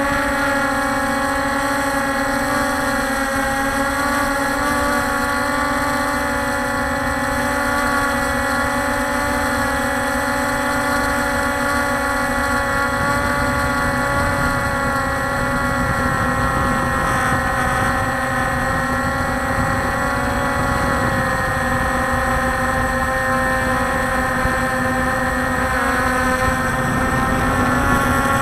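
Walkera Scout X4 quadcopter's electric motors and propellers whining steadily in flight, heard from its onboard camera: several steady tones that waver a little in pitch, over a low rumble.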